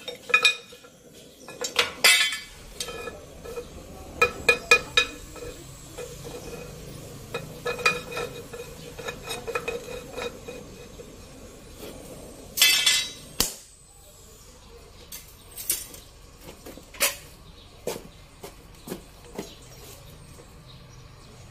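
Steel tools clinking and scraping against a cast-aluminium part as it is worked: bursts of ringing metal clinks, busiest in the first half and again about twelve seconds in, then lighter scattered taps.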